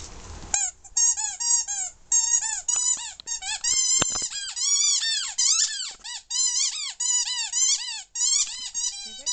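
A dog chewing a squeaky ball toy, squeezing out squeak after squeak, several a second, each rising and then falling in pitch; the squeaking starts about half a second in.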